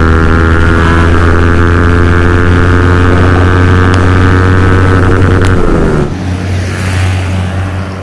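Yamaha MT-15's 155 cc single-cylinder engine through an aftermarket full-system exhaust, heard from the rider's seat as a steady drone at cruising throttle. Its pitch drops as the throttle closes about five and a half seconds in. It then cuts to a quieter, rougher roadside sound of passing traffic.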